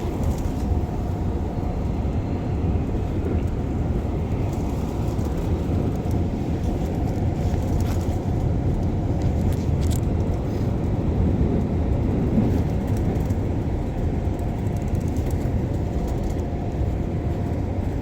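Keikyu Line train with a steady low rumble and a faint, even hum.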